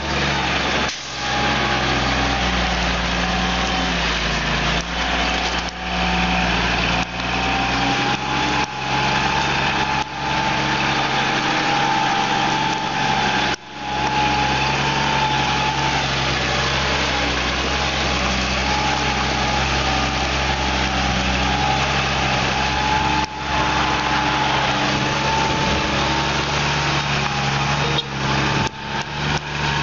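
Semi truck's diesel engine running steadily at low speed while the rig creeps through a tight turn, with a steady high whine over it and a few brief drops in level.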